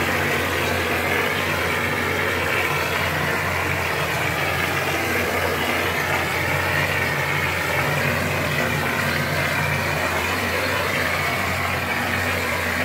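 Plaster spraying machine running steadily: a low mechanical hum with a constant hiss above it.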